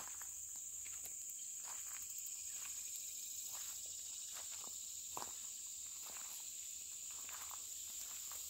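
Steady high-pitched drone of an insect chorus, with irregular footsteps rustling through weeds and brush.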